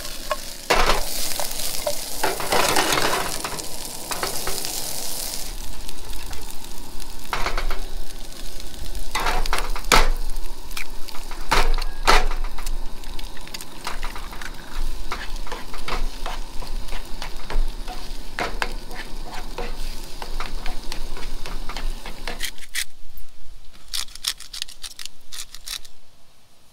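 Vegetables and eggs sizzling in a nonstick skillet on a propane camp stove, with the pan shaken and the food stirred, giving sharp scrapes and taps against the pan. The sizzling drops away about three seconds before the end, leaving a few quick clicks from a pepper grinder.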